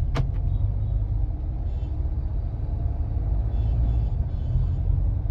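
Low steady road rumble inside a moving Mahindra XUV700's cabin, with one sharp click shortly after the start, which the owner takes for the passenger-side dashboard rattle, a plastic-like knock.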